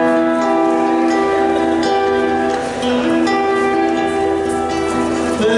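Instrumental Argentine folk music: a melody of held notes over guitar accompaniment.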